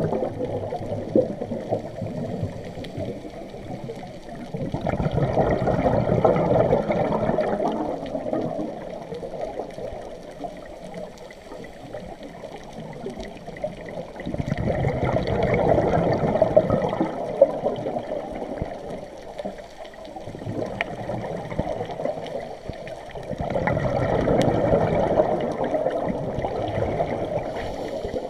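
Underwater bubbling of a scuba diver's exhaled breath leaving the regulator. It swells in long gurgling rushes about every nine to ten seconds, three times, with quieter water noise between.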